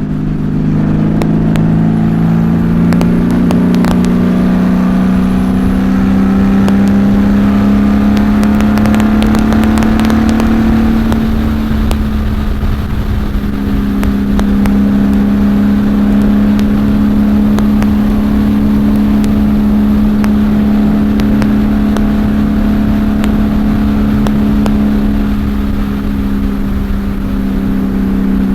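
Honda Valkyrie's flat-six engine through Cobra six-into-six exhaust pipes at highway speed, heard from inside the rider's helmet with wind buffeting. The engine note rises steadily for about the first ten seconds as the bike accelerates, then holds at a steady cruise.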